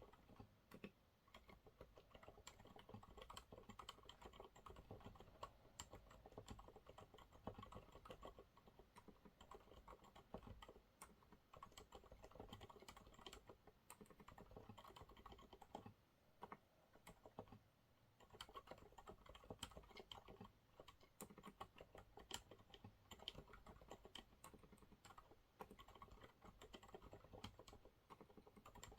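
Continuous quiet typing on a Monsgeek MG108W mechanical keyboard with TTC silent brown switches, a dense, irregular run of soft keystrokes with a brief lull a little past the middle.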